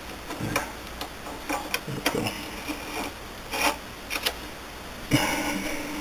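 Light metallic clicks and taps as a locking nut is turned by hand on the back end of a South Bend 9A lathe spindle. A short scraping rub comes about five seconds in.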